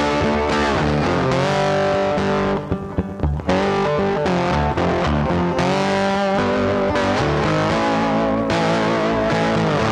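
Background instrumental music led by guitar, dipping briefly about three seconds in.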